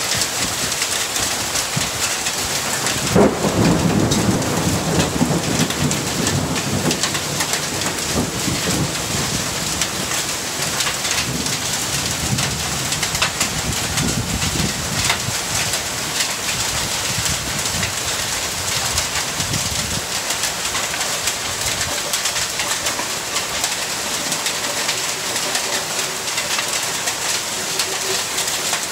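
Rainstorm: rain falling steadily on leaves and pavement. About three seconds in, thunder breaks into a long low rumble that slowly fades over the next ten seconds or so.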